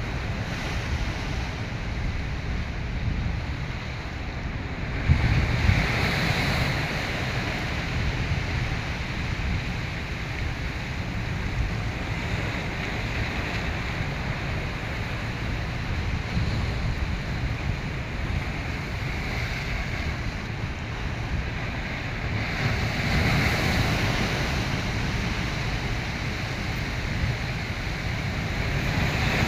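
Rough sea surf rushing and breaking, with wind buffeting the microphone; the waves surge louder about five seconds in and again past the twenty-second mark.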